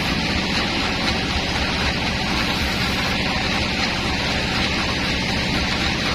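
Sawmill woodworking machinery running steadily: a dense, even noise over a low hum, unbroken throughout.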